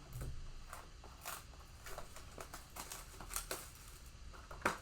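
Faint crinkling and tearing of packaging as a trading-card blaster box is opened, with scattered soft rustles and clicks.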